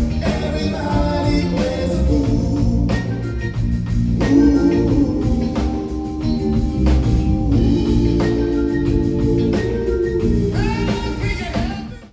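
Soul music with singing over a band, cutting off quickly near the end.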